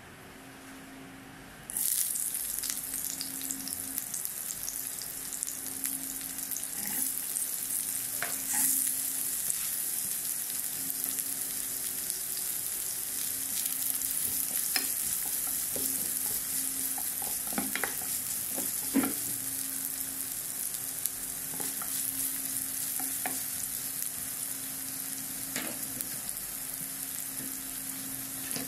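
Chopped onions and chillies dropped into hot oil in a nonstick kadai about two seconds in, setting off a sudden loud sizzle that then keeps on steadily. A spatula stirring them gives scattered scrapes and taps against the pan.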